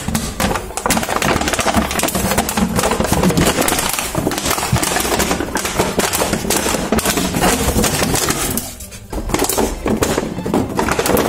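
Plastic PET bottle crackling and crunching in rapid, irregular clicks as a West Highland White Terrier chews and paws at it, with a short lull about nine seconds in.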